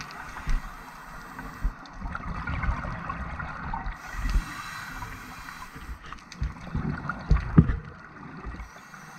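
Scuba regulator breathing underwater: rumbling, gurgling bursts of exhaled bubbles alternating with a hiss, in a slow cycle of a few seconds.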